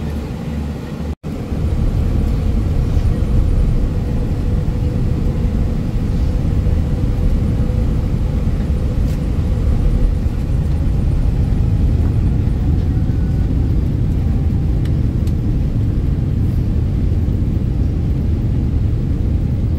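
Jet airliner cabin noise: a loud, steady low rumble of the engines and wheels as the plane rolls along the runway, stepping up louder about two seconds in. A faint whine slowly rises in pitch in the middle, as the engines spool up.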